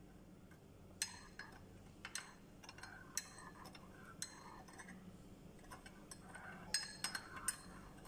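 A metal teaspoon stirring tea in a ceramic cup, clinking against the cup's sides in irregular light taps, with a quick run of louder clinks near the end.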